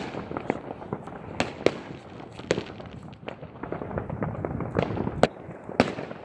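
New Year's Eve fireworks and firecrackers going off all around: a continuous crackle of many distant bangs, with sharper, louder bangs every second or so.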